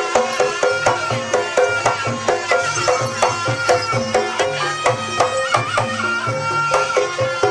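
Jaranan accompaniment music: a gamelan-style ensemble of drums and tuned metal percussion playing a fast, even rhythm under a held, wavering melody line.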